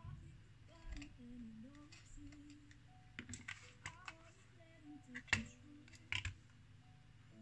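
Small sharp clicks and taps of tools and parts on the opened iPhone 6's frame and components, irregularly spaced with a sharper click a little past the middle, over soft background music.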